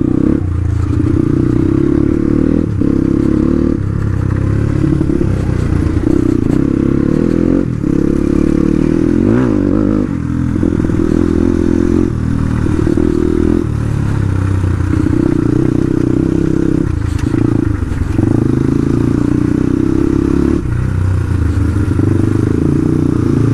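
Motorcycle engine running while being ridden, its note dropping away briefly every few seconds as the throttle is let off, over a steady rush of wind and road noise.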